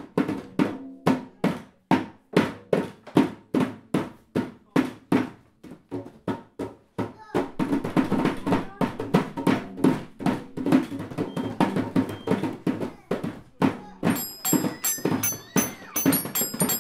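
Children beating small hand drums: evenly spaced strikes about two to three a second, then faster, busier drumming from about seven seconds in. Near the end, the metal bars of a toy xylophone ring out high as they are struck.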